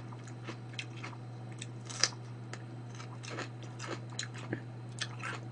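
Crisp bites and chewing of a raw red bell pepper strip close to the microphone: scattered short crunches, one louder about two seconds in, over a steady low hum.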